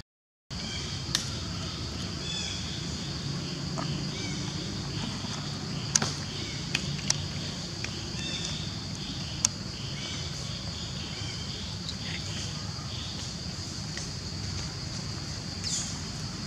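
Outdoor ambience: a steady high-pitched drone over a low rumble, broken by a few short faint chirps and sharp single clicks or snaps, the loudest about six seconds in. It opens with half a second of silence.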